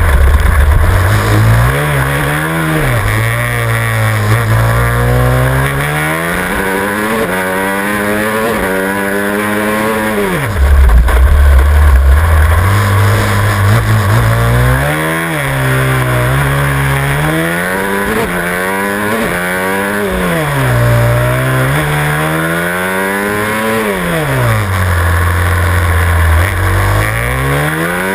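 Supermoto motorcycle engine heard from on the bike, revving up and dropping back again and again as it accelerates out of corners and backs off into them. There is a louder, deeper stretch a little before the middle.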